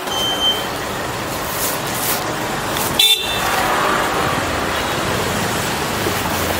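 Road traffic noise and wind around a slowly moving electric scooter, with a short high toot about three seconds in.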